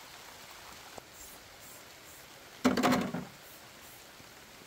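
Steady soft hiss of falling water, with rain and a battery shower sprayer's spray, broken about two and a half seconds in by one brief loud sound lasting under a second.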